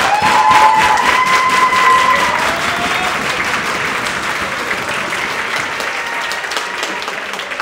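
Audience applauding, with a few held cheering shouts in the first two seconds or so; the applause gradually dies down.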